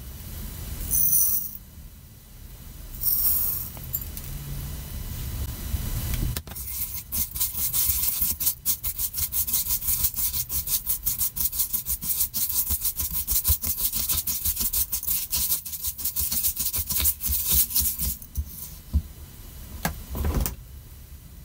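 A silicone spatula stirring granulated sugar in a glass bowl: fast gritty scraping and crackling of sugar grains against the glass, starting about six seconds in and stopping shortly before the end. A couple of brief gritty rustles come in the first few seconds, and a single knock near the end.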